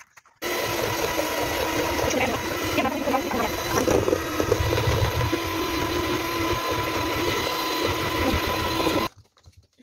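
Electric hand mixer running steadily, its beaters whisking eggs in a steel bowl, with a steady motor whine. It switches on just after the start and cuts off shortly before the end.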